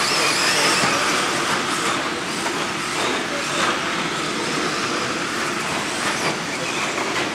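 Several electric radio-controlled 2WD short course trucks racing on a dirt track: motor whines rising and falling over a steady hiss of tyres on dirt, with a few short sharp knocks.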